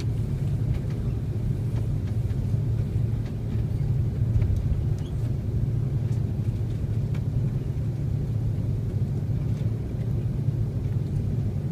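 Steady low rumble in the cabin of an Airbus A330-300 rolling out on the runway after touchdown, with spoilers and flaps deployed: the engines and the landing gear running over the runway. Faint clicks and rattles come from the cabin.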